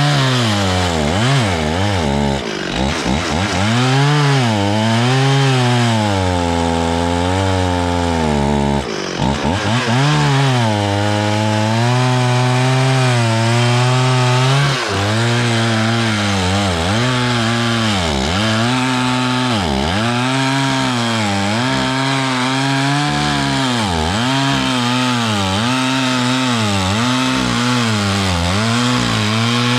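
Stihl 440 two-stroke chainsaw cutting wood at high revs. Its pitch sags under load and recovers again and again, in the second half in regular dips about every one and a half to two seconds.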